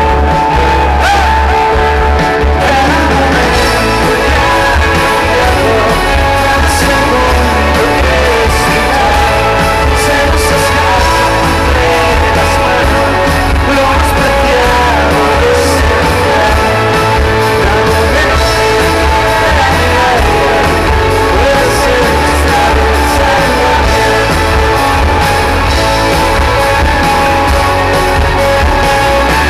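Indie rock band playing live, with electric guitars, bass and drums and a singer, as heard from the crowd at a concert.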